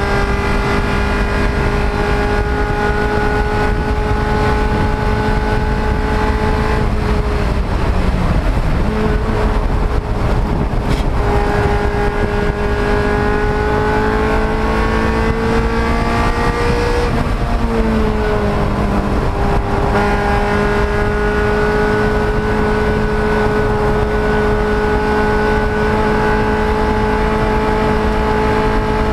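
Race car engine running hard at high, steady revs under a heavy rush of wind and road noise. The engine note drops and recovers twice, first a little past a quarter of the way in and again a little past halfway after a slow climb, as with lifting or shifting for corners.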